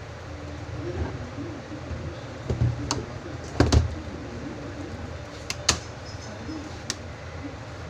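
Sharp plastic clicks and knocks of a laptop being taken apart for a keyboard replacement, about six scattered strokes with a close pair near the middle, over a steady low hum.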